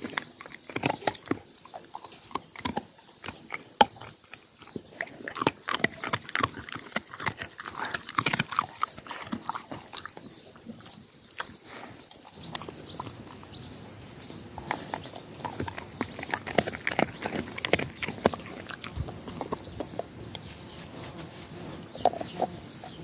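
A dog chewing food, a quick irregular run of crunches and clicks with short pauses between bouts.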